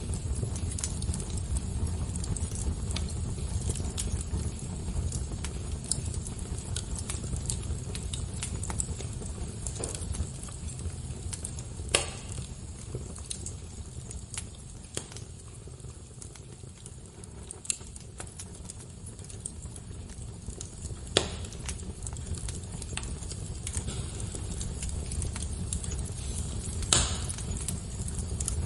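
Fire crackling: a steady low rumble with many small crackles and three louder pops.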